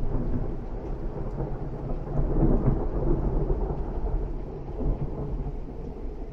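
Thunder rolling in: a deep rumble that swells in suddenly at the start, is loudest about two to three seconds in, and then slowly eases off.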